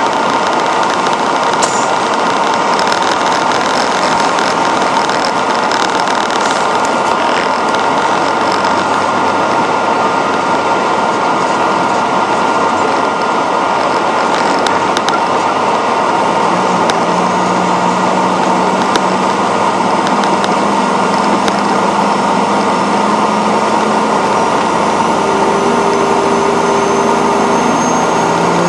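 Western Star quad tipper truck's diesel engine running as the truck drives, heard under a steady, dense hiss of noise. From a little past halfway a deeper, steady engine note comes through.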